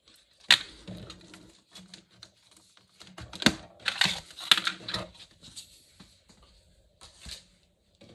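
Hands handling a metal pen tin and a cardboard pen box on a desk: a sharp click about half a second in, a flurry of taps, knocks and rustling from about three to five seconds, and one more knock near the end.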